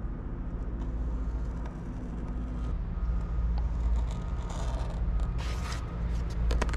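Utility knife slicing through a rubber RV roof membrane to open a hole, with short scraping and rustling as the cut flap is pulled back, over a steady low rumble.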